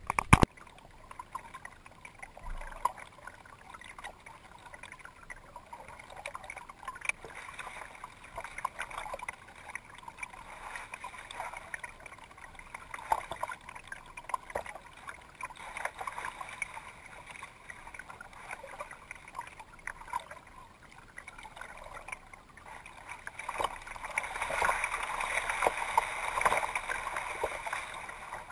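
Water trickling, dripping and lapping around a kayak being paddled across calm water, with small irregular splashes. A brief sharp knock right at the start, and the water sound swells for a few seconds near the end.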